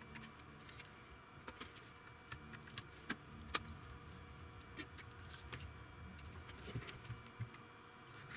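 Faint, scattered clicks and small knocks, about ten of them, from a welding inverter's circuit board and plastic housing being handled and shifted, over a faint low rumble.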